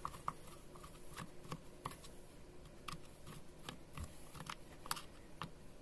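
Screwdriver turning a rusted, stuck screw in a steam iron's housing: faint, irregular small clicks and ticks as the screw resists.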